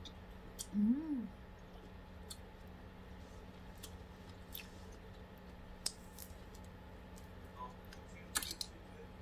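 A short rising-and-falling vocal 'mm' about a second in, then scattered small clicks and taps of a person at a breakfast meal, a tight cluster of them near the end, over a steady low hum.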